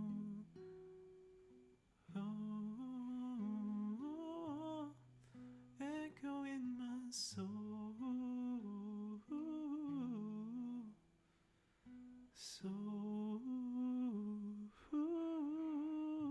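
A man humming a wordless melody close to the microphone, over softly played nylon-string classical guitar, in phrases of a few seconds that slide up and down in pitch, with short pauses between them.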